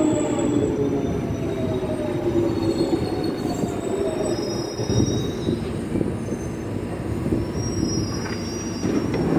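London Underground 1996 Stock train slowing to a stop: its motor whine falls in pitch over the first few seconds over the rumble of the wheels, with thin high squeals from the brakes and wheels. Near the end there is a louder rush of noise as the sliding doors open.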